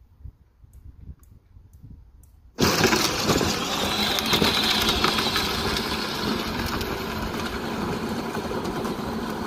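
A lawn tractor engine that comes in suddenly about two and a half seconds in, loud, and then runs steadily, easing off slightly toward the end.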